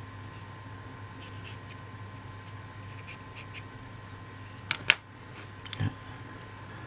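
Small laser-cut MDF building parts being handled and fitted together, giving light scattered clicks and taps, with two sharp clicks close together about two-thirds of the way through and a softer knock just after.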